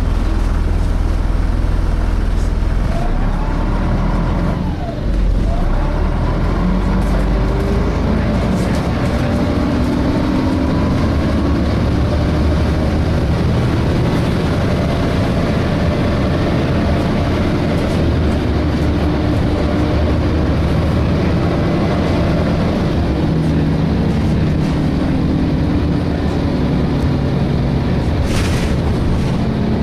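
Inside a DAF SB220 single-decker bus under way: its diesel engine runs under load while the cooling fan is hoovering. The engine note rises and falls repeatedly as the bus pulls away and the Voith automatic gearbox changes gear, with a brief drop about five seconds in.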